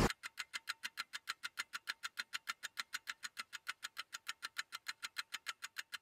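A rapid, even ticking sound effect, about seven sharp clicks a second at a steady level, like a clockwork or ratchet mechanism. It starts right on the tail of a rising whoosh.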